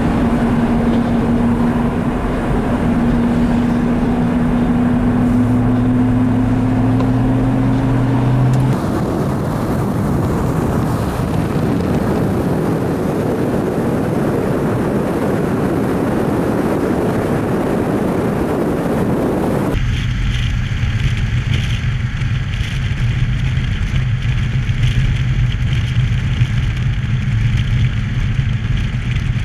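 Snowplow trucks and highway traffic: a steady engine drone with rushing tyre and road noise. The sound changes abruptly twice.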